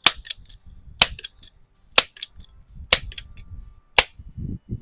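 A string of five sharp gunshots, evenly paced at about one a second, with fainter clicks in between and a low thump near the end.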